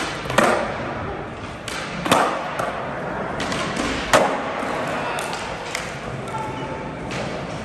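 Skateboards popping and landing on concrete: a run of sharp clacks and slaps, the loudest about half a second, two seconds and four seconds in, echoing in a large hall.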